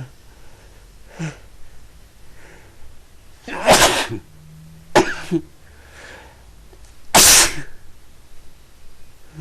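Person sneezing in a fit of repeated sneezes that won't stop: two loud sneezes about three and a half seconds apart, with shorter, fainter bursts between them.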